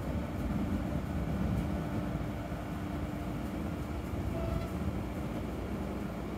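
Distant thunder rolling in a long, steady low rumble.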